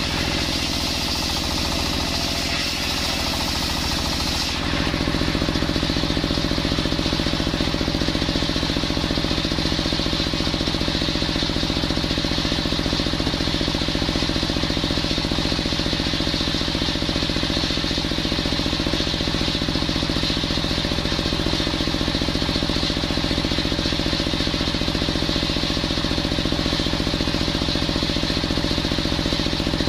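Engine-driven table circular saw ripping coconut wood, the blade's hiss filling the sound until the cut ends about four and a half seconds in. After that the blade spins free with the engine running steadily at speed.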